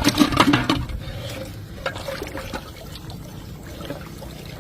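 Water splashing for about the first second, then settling to a quieter trickle.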